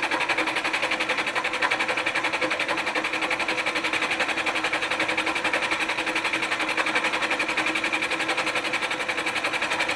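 Milling machine cutter taking a cut across the face of a cast-iron manifold, about 20 thousandths deep. It makes a steady, fast, even chatter with a constant tone under it as the cut runs on.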